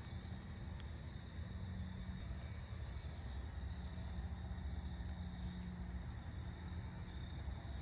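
Quiet outdoor ambience: a steady high-pitched trill over a low rumble.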